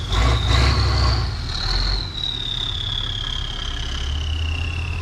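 Heavy trial truck's engine running under load as the truck works down a steep dirt bank. A louder surge of revving comes in the first two seconds, then the engine settles to a steadier run. A thin high whine slowly falls in pitch throughout.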